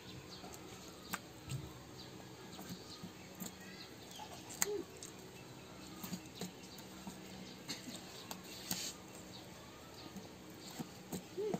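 Faint handling sounds from sewing up a whole pig's belly with string: scattered light clicks and ticks as the cord is pulled and knotted through the skin. A few faint chirps and a low steady hum lie beneath.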